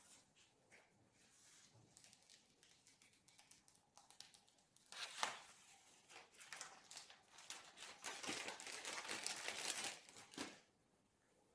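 Packaging crinkling and tearing as it is handled. It is faint and scattered at first, then turns into a dense, louder crackle about five seconds in that stops abruptly near the end.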